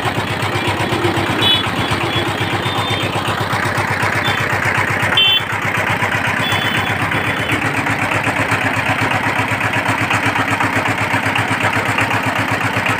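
Single-cylinder diesel power tiller engine running steadily with a rapid, even firing beat, freshly rebuilt with its tappet clearance adjusted. A brief louder moment about five seconds in.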